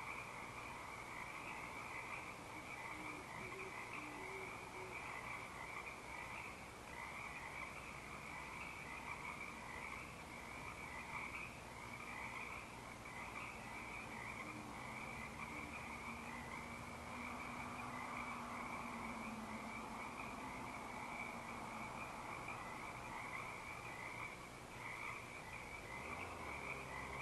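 Frog chorus: many frogs trilling steadily and overlapping, in a high pulsing band with a lower band beneath. A few faint, low owl hoots come about three to four seconds in.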